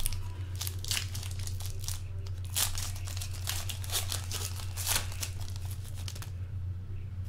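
Foil trading-card pack wrapper being torn open and crinkled by hand, in a quick run of crackles that dies away about six seconds in. A steady low hum runs underneath.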